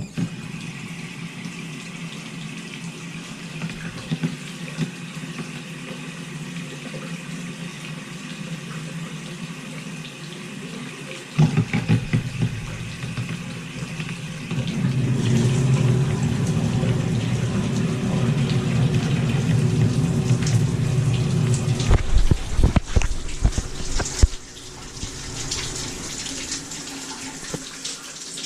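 Bathroom faucet running water into a sink. The flow gets louder and fuller about eleven seconds in and again a few seconds later, with several knocks around two-thirds of the way through before it eases back.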